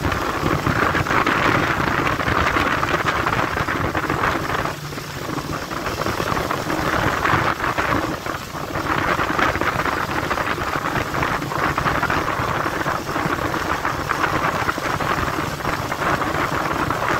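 Wind buffeting the microphone on a motorboat under way at speed, over the rush of water along the hull, with the boat's engine humming low underneath. The rush eases briefly twice, about five and eight seconds in.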